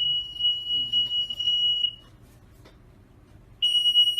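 High-pitched electronic alarm tone of a mock emergency alert. One steady tone sounds for about two seconds, stops, then starts again near the end after a pause of about a second and a half.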